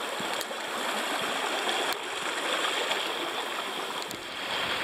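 A small hillside stream babbling and rushing steadily, with a few faint clicks over it.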